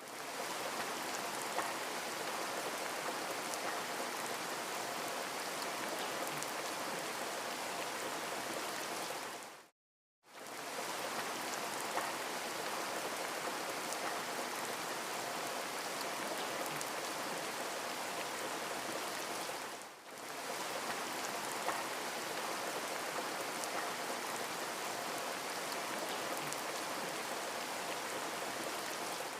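Waterfall: a steady rush of falling water, an even hiss with no rhythm. It cuts out to silence for half a second about a third of the way in and dips briefly again about two-thirds of the way through.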